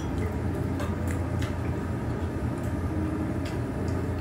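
A few light clicks and taps of metal chopsticks and a spoon while eating, over a steady low hum of the dining room.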